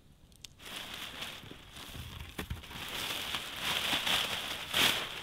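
Clear plastic drop sheet crinkling and rustling as someone moves about inside a plastic-and-Mylar lean-to shelter, starting about half a second in, with a louder crackle near the end.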